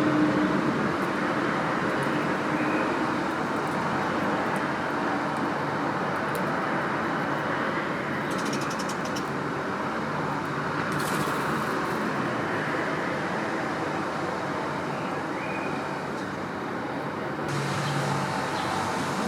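Steady road traffic noise, a continuous rumble of passing vehicles, with a couple of brief faint high chirps.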